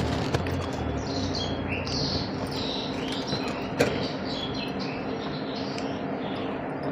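Small birds chirping repeatedly over a steady low hum, with a single sharp click about four seconds in.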